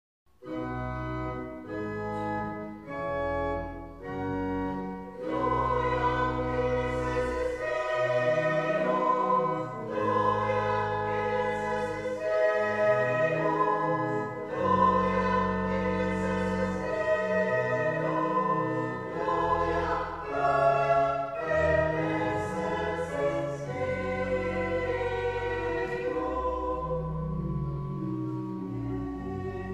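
Pipe organ playing with a group of voices singing. It opens with a few short, separate chords over the first four seconds, then sustained singing and organ.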